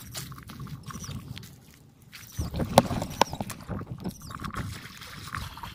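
Water splashing and sloshing in uneven strokes, with a couple of sharper knocks or splashes about halfway through.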